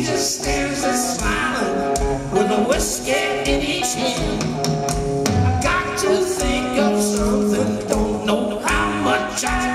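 Live rock band playing loudly, with drums, guitar and a male lead singer.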